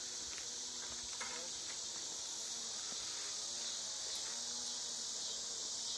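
Steady, high-pitched insect chorus that keeps on without a break.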